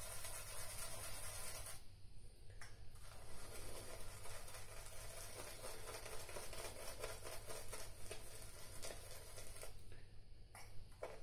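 Omega shaving brush swirled on shaving soap: a faint, scratchy rubbing of bristles loading the brush to build lather. It breaks off briefly about two seconds in and again near the end.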